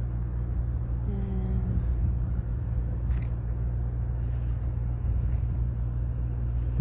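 Steady low drone of idling vehicle engines. A brief vocal sound comes about a second in.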